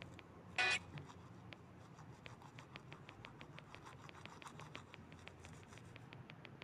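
A rapid, even series of faint clicks, about five or six a second, with one short, loud beep about half a second in.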